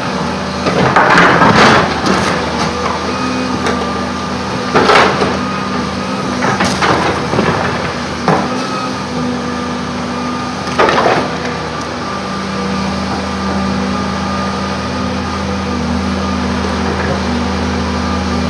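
Volvo EC210 excavator's diesel engine running steadily while the steel bucket scrapes through and dumps rocky soil, with four loud clattering scrapes of rock on steel, about 1, 5, 7 and 11 seconds in. The engine note rises slightly about 12 seconds in.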